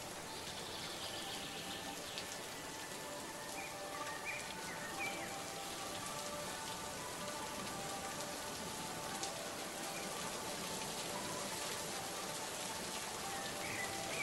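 Steady rain falling, with faint sustained music tones underneath and a few short high chirps about four seconds in and again near the end.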